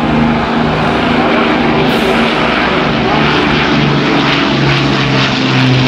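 Avro Lancaster's four Rolls-Royce Merlin piston engines droning loudly as the bomber passes low overhead, several propeller-engine tones beating against each other, with a deeper note coming up strongly near the end.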